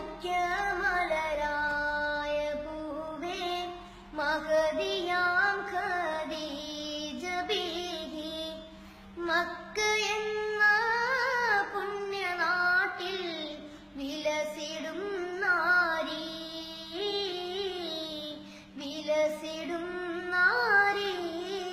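A boy singing alone without accompaniment, a high child's voice carrying a melody in phrases of a few seconds, with notes bent and ornamented, and short breath pauses between phrases. A faint steady hum lies underneath.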